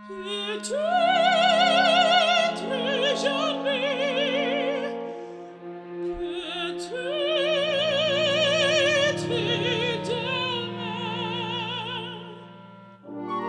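Operatic singing: a high voice with wide vibrato over held accompaniment, in two long phrases. It breaks off near the end.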